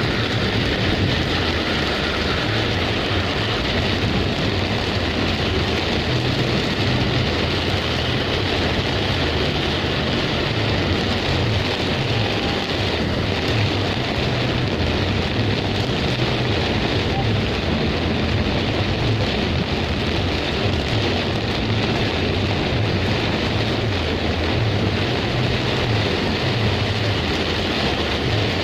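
Heavy rainstorm: a steady downpour with an uneven low rumble underneath.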